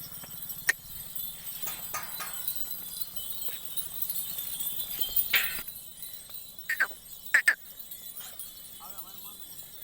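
Barbari goats moving about, with scattered short knocks and sharp cries, the loudest a few seconds in, and a couple of quick runs of high chirps near the end.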